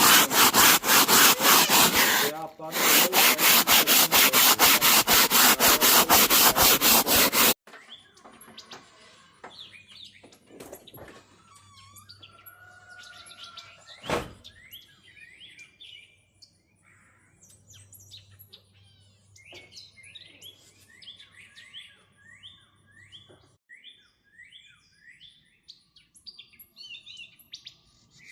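Rapid, even scrubbing strokes, about five a second, rubbing hard on a surface close to the microphone. They stop abruptly about seven seconds in, leaving small birds singing: repeated short, falling chirps and a single sharp click midway.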